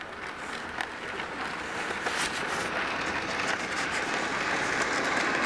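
HO scale model locomotives rolling along the track: a steady rushing noise of wheels and motors, with scattered clicks.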